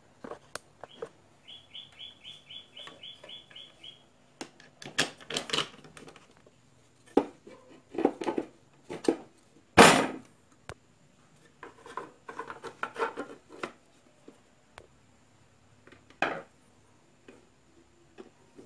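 Plastic housing parts and fan impeller of a small electric air blower being handled and fitted together on a wooden workbench: scattered clicks, knocks and rattles, the loudest a sharp knock about ten seconds in. Near the start, a quick run of about ten evenly spaced chirps.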